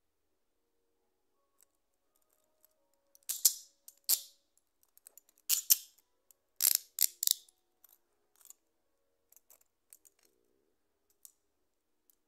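Hinged metal handcuffs worked by hand: runs of ratchet clicking and metal rattling as the cuff arm is turned through the lock. The loudest runs come about three to seven and a half seconds in, followed by a few fainter clicks.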